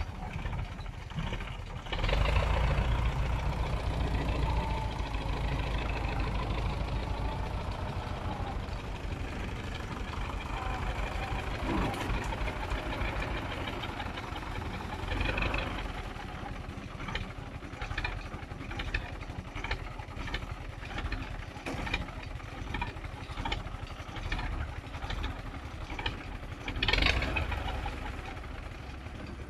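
Diesel farm tractor engine running under load as it pulls a soil-laden trolley, growing louder about two seconds in. Over the second half, irregular clanks and knocks sound over the engine.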